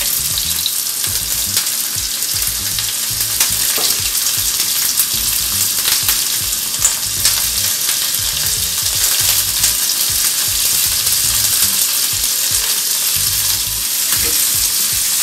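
Food sizzling as it fries in hot oil: a steady hiss, with a few light taps.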